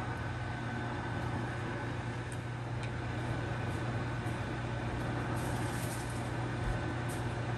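Steady low hum and even whooshing noise of a running kitchen appliance beside a frying pan of shrimp in oil on high heat, with a few faint ticks and crackles.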